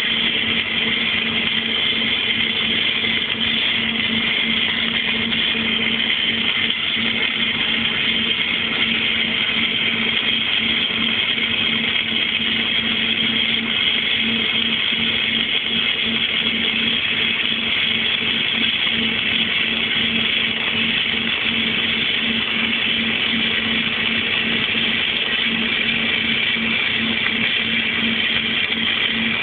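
Self-shielded flux-cored (Innershield) arc welding: a steady, continuous crackling sizzle from the arc during a long weld pass, with a constant electrical hum from the welding machine underneath.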